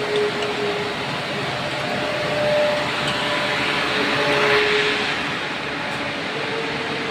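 Steady industrial running noise of an induction furnace, with a faint hum that switches back and forth between two pitches. The noise swells a couple of times.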